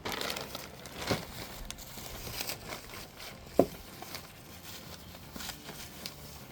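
Hands handling plastic car parts and packaging: rustling and crinkling with scattered clicks, and one sharp knock about three and a half seconds in.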